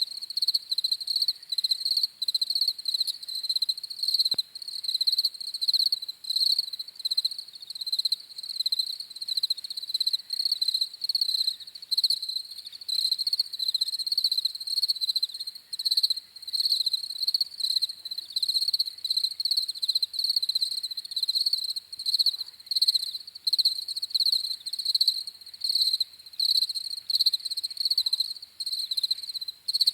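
Crickets chirping in a steady, rhythmic stream of high-pitched pulses.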